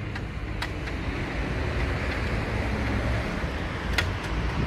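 Steady street traffic noise with a low rumble, and two short sharp clicks, about half a second in and near the end.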